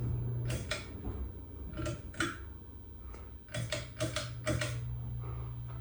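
Casablanca Wailea ceiling fan running with a low motor hum, and a series of sharp mechanical clicks at irregular intervals.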